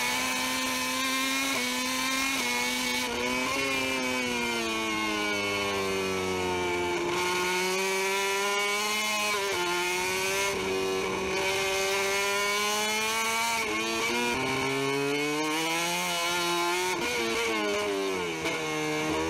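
MotoGP racing motorcycle engine at high revs, its pitch rising and falling with gear changes and throttle through corners, dubbed over the riding footage.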